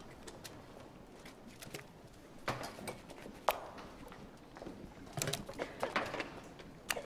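Irregular clacks and knocks of a ladle against bowls as gruel is doled out, several in quick succession about five to seven seconds in.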